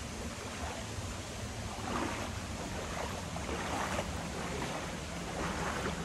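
Steady rushing of a shallow jungle river, with a few soft splashes from wading steps through water about knee-deep.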